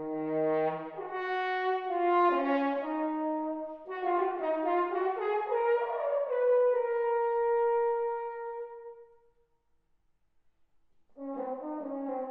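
Solo French horn playing a phrase of separate notes that ends on a long held note fading away about nine seconds in; after a pause of about two seconds the horn starts playing again near the end.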